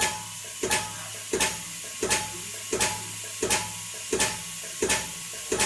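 Gas-filling pump of a dive-shop blending station running: a steady hum and hiss with a regular pumping stroke about every 0.7 seconds.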